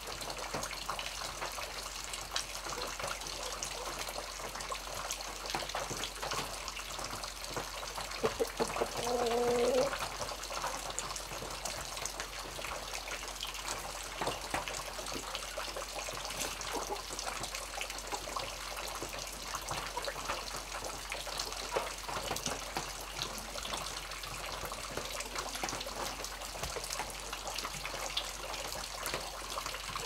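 Monsoon rain on a small mountain stream: a steady rush of running water with many small drop splashes. About nine seconds in, a brief low pitched tone sounds over the water for about a second.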